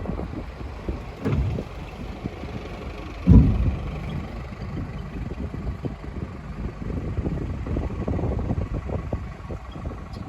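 An engine running steadily, with uneven low buffeting and two thumps, the second and louder one about three seconds in.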